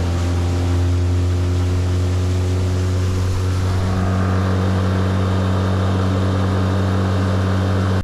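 Outboard motor driving a Gheenoe skiff at a steady cruising speed: a constant engine hum over water rushing along the hull. The engine's tone shifts slightly about four seconds in.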